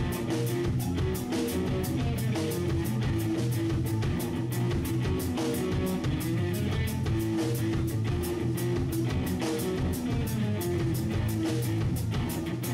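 Instrumental progressive rock: guitar over a drum kit keeping a steady beat.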